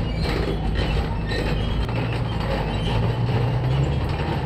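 Background music with a steady low bass line that changes note every second or so, mixed with the running noise of a tank's engine and tracks.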